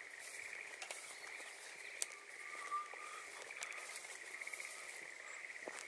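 A steady, faint, high trilling chorus of calling frogs or insects, with a brief higher call in the middle, and a few light clicks and footfalls on a dirt path, one sharp click about two seconds in.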